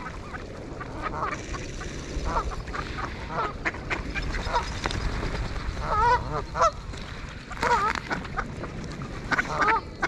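A flock of mallards quacking in short, nasal calls that come thicker from about six seconds in, with many sharp little clicks among them.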